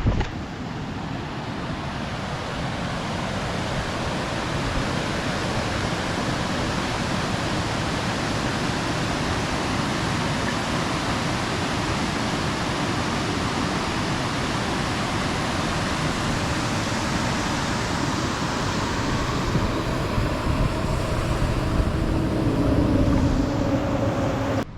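Steady rushing of water spilling over a stone dam, an even roar that starts and stops abruptly.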